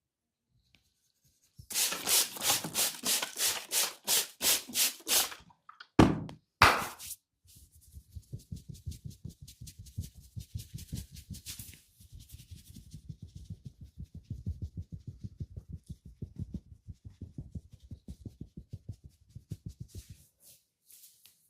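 A barber's hands massaging, heard close up: a run of quick rubbing strokes, about four a second, then two sharp slaps a little under a second apart. After that comes a long spell of fast, soft, dull patting that stops near the end.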